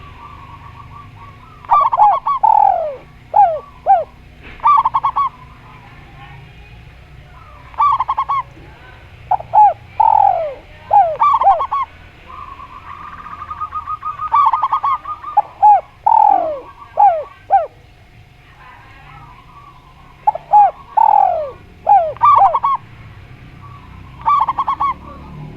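Spotted dove (tekukur) and zebra dove (perkutut) cooing: loud groups of short coo notes, many sliding down in pitch, come every few seconds, with softer rapid purring trills between them.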